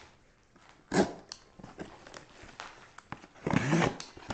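Cardboard shipping box being opened and handled by hand: scattered rustles, scrapes and small clicks of cardboard and packing, with a louder burst about a second in and another near the end.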